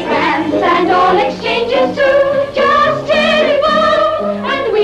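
Women's voices singing a song together with instrumental accompaniment, including held notes with vibrato.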